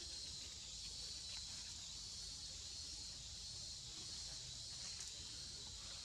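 Steady high-pitched insect chorus, a continuous shrill hiss, with a few faint clicks.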